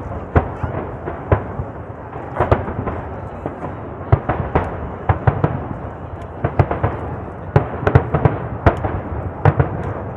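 Aerial fireworks shells bursting in quick, irregular succession, about two sharp booms a second, over a steady background of noise from the ongoing display.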